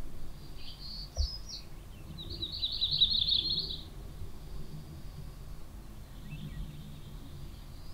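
Songbirds singing: short high phrases, then a rapid trill of quickly repeated notes about two to four seconds in, over a steady low rumble.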